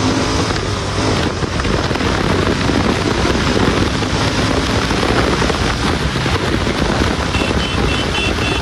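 Royal Enfield Interceptor 650's 650 cc twin-cylinder engine, fitted with an aftermarket exhaust, running steadily while the bike is ridden, heavily mixed with wind rushing over the microphone. A short run of high beeps comes near the end.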